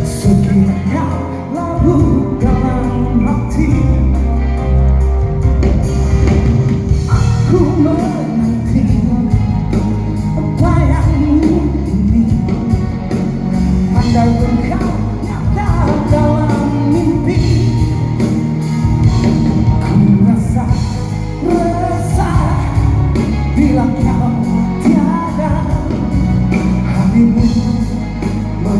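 A band playing a song live with a singer, the music running continuously with a strong bass line.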